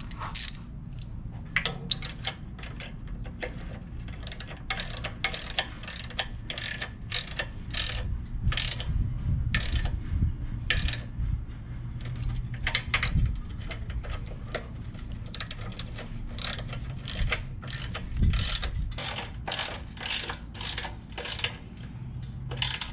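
Socket ratchet clicking in quick runs with short pauses, as engine mounting bolts are tightened down on a minibike's motor plate.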